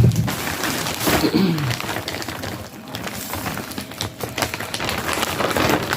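Plastic packaging crinkling and crackling in irregular bursts of small clicks as items are handled.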